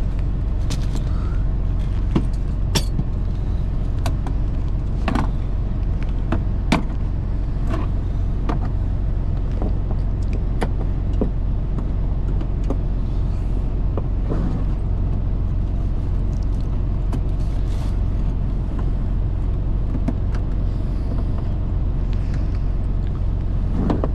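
Semi truck's diesel engine idling steadily, with scattered sharp clicks and knocks over it.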